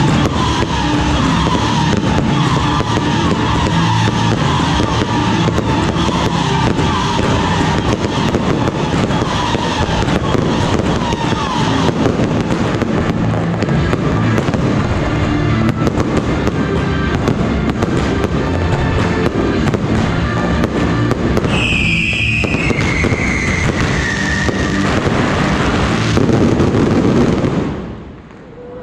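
Fireworks display going off without a break: a dense run of crackles and bangs from rising rockets and bursting aerial shells. It falls away sharply shortly before the end.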